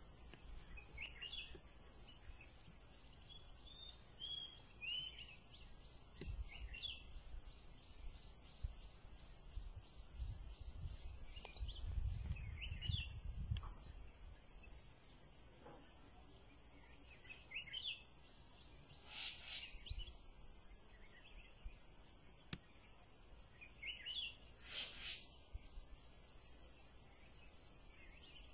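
Night insect chorus, a steady high trill, with short chirping calls every few seconds. Low knocks and rumbles come around the middle.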